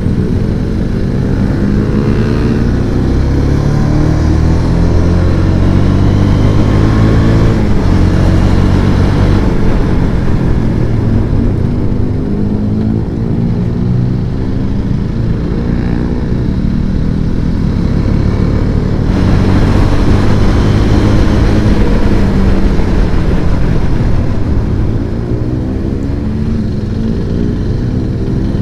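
Motorcycle engine running while riding, its pitch rising and falling repeatedly as the throttle opens and closes.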